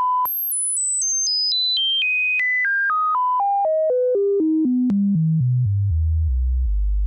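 Broadcast audio test signal: a brief steady reference tone, then a sweep of pure tones stepping down in pitch about four times a second, from very high to a deep bass hum, used to check the circuit's frequency response.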